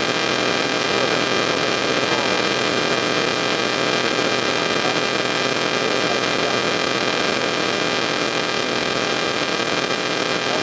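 Steady electrical hum and hiss with several faint high whining tones, unchanging throughout.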